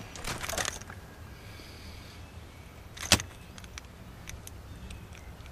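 Hands handling a caught crappie and its lure, with small clicks and rustles. One sharp click about three seconds in is the loudest sound.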